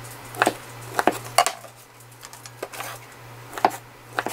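Chef's knife chopping through a stack of thin flat fish cakes onto a wooden cutting board, about six sharp, irregularly spaced knocks, with cut pieces dropped into a stainless steel bowl.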